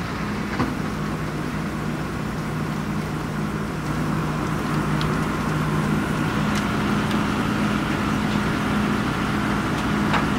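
A motor vehicle's engine running steadily with a low, even hum.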